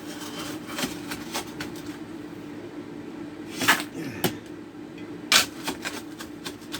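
Folding trenching shovel scraping into damp dirt and rock and tipping it into a bucket: scattered scrapes and knocks, with two louder clatters in the second half, over a steady low hum.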